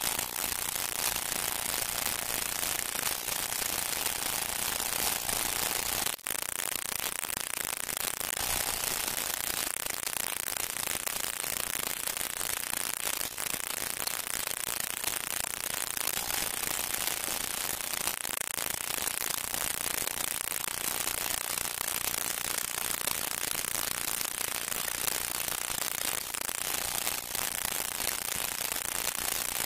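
Steady hiss and crackle of an old film soundtrack, with no music or voices in it and a brief dropout about six seconds in.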